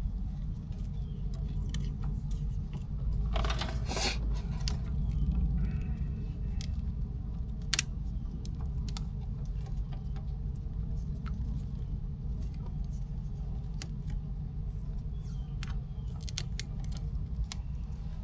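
Zip ties being fastened around wiring by hand: scattered small clicks and rustles, with one sharper click about eight seconds in, over a steady low rumble.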